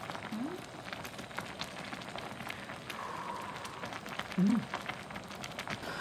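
Food sizzling and crackling in hot oil in a pan, a steady hiss with many small scattered pops. Two brief low vocal sounds from a person come through about half a second and four and a half seconds in.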